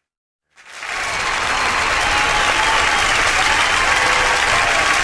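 An audience applauding, a dense steady clapping that fades in after a short gap of silence about half a second in.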